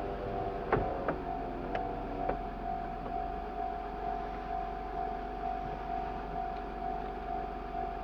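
Railway level-crossing warning bell ringing: a steady, evenly repeating electronic clang. A few sharp clicks sound in the first two seconds or so.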